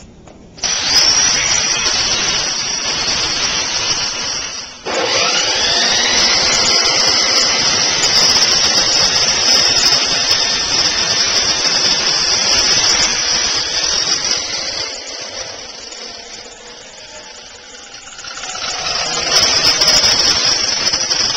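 Handheld electric power tool running with a steady high whine. It cuts out about five seconds in and spins back up, eases off for a few seconds near the end, then runs hard again.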